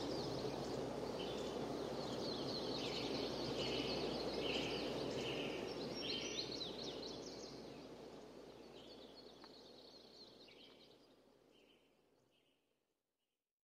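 Outdoor ambience of steady background noise with birds chirping repeatedly, fading out gradually over the second half to silence just before the end.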